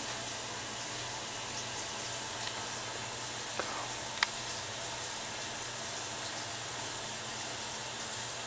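Steady hiss of background noise with a faint low hum, broken by a few faint clicks, two of them about three and a half and four seconds in.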